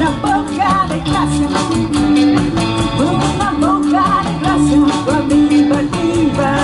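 A woman singing into a microphone over amplified instrumental backing with a steady beat, the whole played through a PA system.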